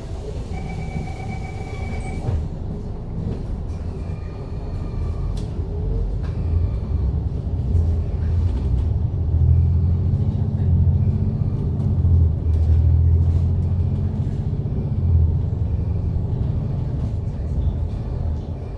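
MAN A95 double-decker bus's diesel engine and drivetrain heard from inside the bus as it pulls away, a low rumble growing louder from about eight seconds in. A steady electronic tone sounds for the first two seconds and then stops.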